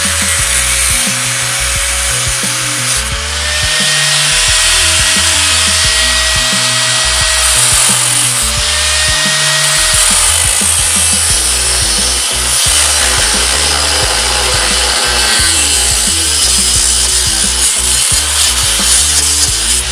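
Music with a stepping bass line plays over the continuous noise of a power tool cutting the van's steel bodywork.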